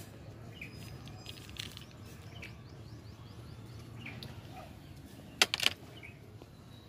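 Outdoor ambience with a low steady hum and a few faint bird chirps; about five and a half seconds in, two sharp clicks in quick succession.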